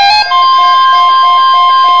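Emergency Alert System attention tone: after the programme music cuts off and a brief gap, a single steady high tone begins about a quarter second in and holds, announcing a statewide tornado drill test.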